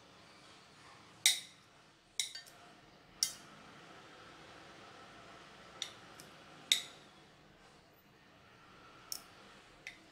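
Metal kitchen tongs clicking and clinking against a ceramic plate as pieces of grilled chicken are set down: about nine sharp clicks at irregular intervals, the loudest about a second in and just before the seven-second mark.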